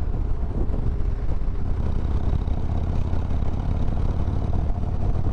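Harley-Davidson Road Glide's V-twin engine running steadily under way, a deep even rumble.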